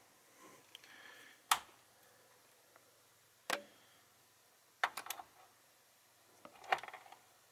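Sharp plastic clicks from handling an Aputure Amaran LED video panel: single clicks about a second and a half in and two seconds later, as the panel's power switch is turned on, then two quick clusters of clicks as a DC power plug is fitted into the panel's input socket.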